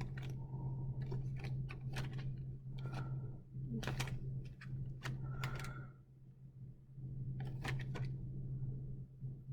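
Food containers and packages being handled and set down while sorting through a fridge: scattered light clicks and knocks, a couple with a short ringing clink, over a steady low hum.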